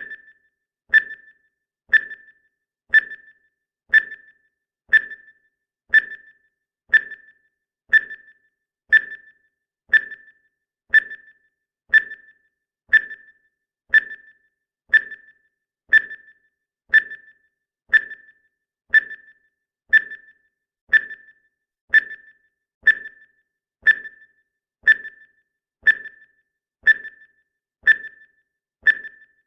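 Countdown timer's ticking sound effect: a short, bright tick once a second, evenly spaced and steady.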